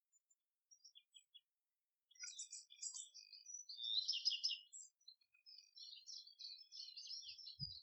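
A small songbird singing: high, quick twittering phrases begin about two seconds in, loudest near the middle, followed by a longer run of chatter near the end.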